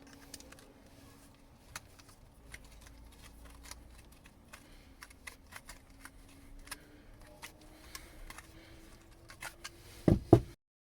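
Wire strippers working the end of a copper refrigerant tube to round it out, giving irregular small metallic clicks and scrapes over a steady low hum. Two loud thumps come near the end, just before the sound cuts off.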